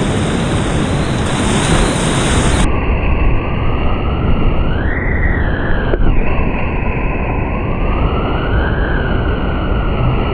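Loud, steady rush of whitewater rapids heard on a kayaker's action camera, with wind buffeting the microphone. From about three seconds in until just before the end, the sound turns muffled and dull, its top end cut off.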